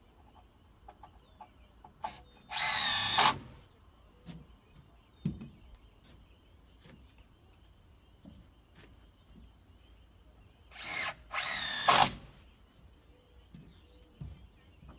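Power drill running in two short bursts of about a second each, about 2.5 seconds in and again near 11 seconds, its motor whine wavering in pitch under load. Light knocks and clicks of handling timber and tools come between the bursts.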